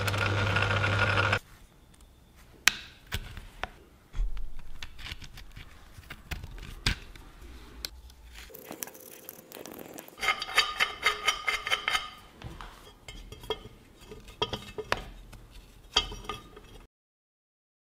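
Metal lathe running as it turns a small steel pin, cutting off about a second and a half in. Then scattered clicks, scrapes and quick metallic clinks with short ringing tones as the new pin is screwed into the magnetic chuck's switching mechanism and the steel parts are handled.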